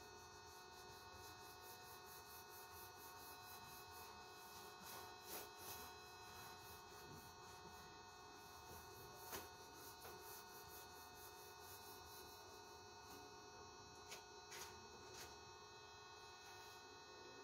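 Near silence: a steady electrical hum, with a few faint taps scattered through it.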